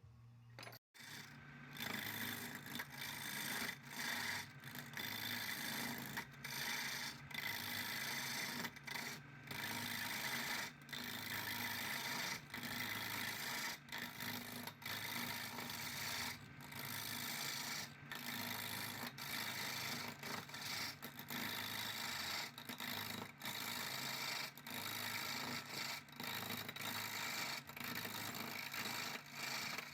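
Repeated rasping strokes of an abrasive being rubbed hard against a surface, with brief breaks between strokes, as in scrubbing or sanding off rust.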